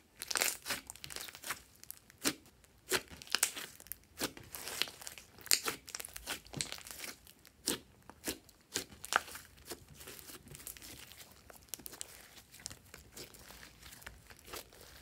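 Glossy slime kneaded and stretched by hand, giving a quick run of sharp crackles and small pops as it is pressed and pulled. The crackles thin out to fainter, sparser clicks in the last few seconds.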